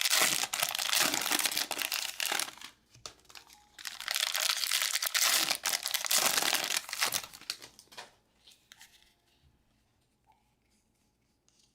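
Foil trading-card pack wrappers crinkling and tearing as packs are opened and handled, in two long bouts, then only faint rustles near the end.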